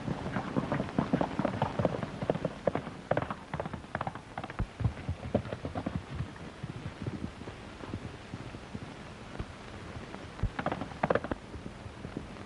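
Horses' hooves galloping, a rapid irregular clatter that thins out about halfway through, with a short flurry of hoofbeats near the end.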